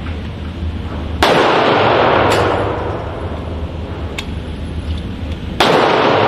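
Gunshots at a shooting range: two loud shots about four seconds apart, each with a long echoing tail, and fainter single shots in between.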